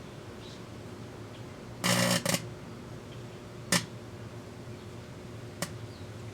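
Microwave oven running with a steady hum while the metal biscuit can inside arcs: a short, loud buzzing crackle about two seconds in, then a sharp snap and, near the end, a fainter one.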